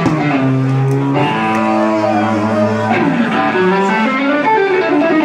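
Electric guitar played live through an amplifier: long held notes, some sliding up and down in pitch.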